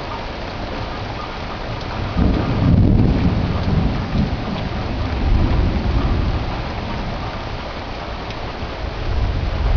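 Rain falling steadily through a thunderstorm. About two seconds in, a long roll of thunder builds, is loudest about a second later and rumbles on for several seconds, with a smaller swell of rumble near the end.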